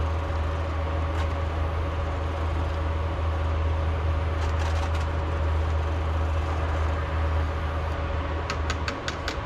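Small handheld electric mixer running steadily as it stirs dye into hot water in a pitcher, easing off near the end, just after a quick run of sharp clicks.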